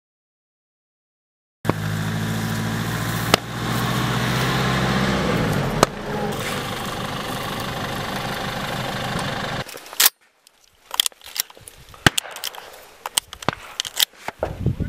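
Mercedes-Benz Sprinter van's diesel engine running as the van drives along a dirt track; its pitch climbs for a couple of seconds, then drops, and the sound stops abruptly about ten seconds in. A series of sharp clicks and knocks from a shotgun being handled follows.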